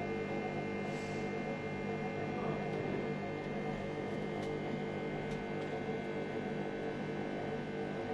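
Mercury arc rectifier humming steadily, a many-toned electrical drone, with its cooling fan running.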